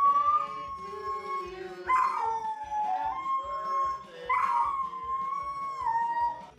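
A dog howling in long, drawn-out calls: one tails off in the first second and a half, then two more follow, each holding its pitch and dropping a step near its end.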